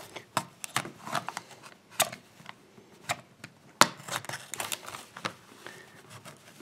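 Plastic blister packaging of a padlock being opened by hand: irregular crackling and sharp clicks of stiff plastic and card, with one louder snap about two-thirds of the way through.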